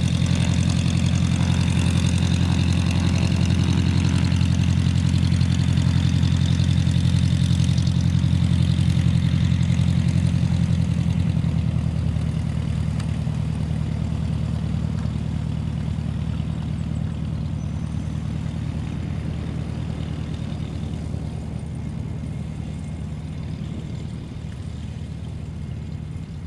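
An engine idling with a steady low hum, slowly fading from about eleven seconds in.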